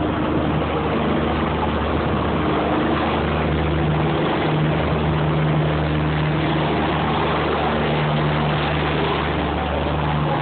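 River boat's engine running steadily under way, a constant low hum over a wash of water and wind noise.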